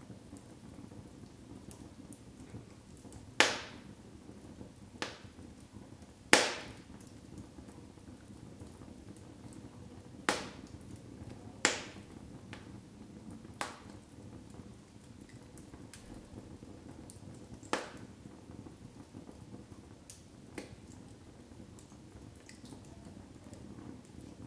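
Split logs burning in a fireplace: a steady low hiss of the fire with about nine sharp crackles and pops at irregular intervals, the loudest two about three and six seconds in.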